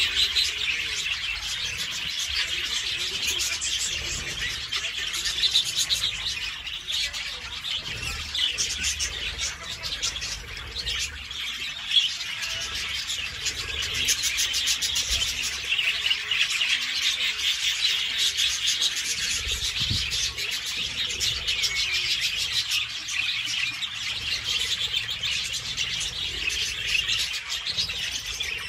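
A large flock of budgerigars chattering and chirping without pause, many overlapping high calls blending into a steady din.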